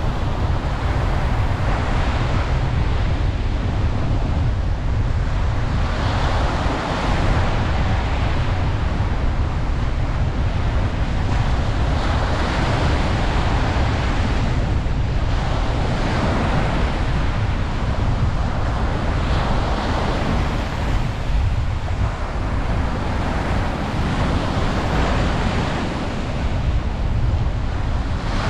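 Ocean waves breaking and washing on a beach, a swell of surf every few seconds over a constant low rumble, with wind buffeting the microphone.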